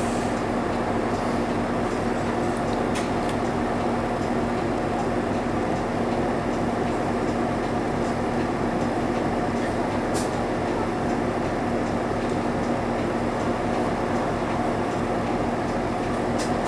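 Interior running sound of a 2002 Isuzu Erga (KL-LV280L1) non-step city bus under way: a steady engine drone with a constant hum and road noise, and a few faint sharp clicks and rattles from the cabin.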